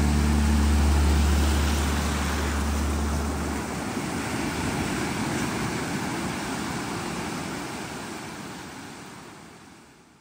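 A steady rushing noise with a low sustained music note under it; the note stops about a third of the way in, and the rushing noise then fades out near the end.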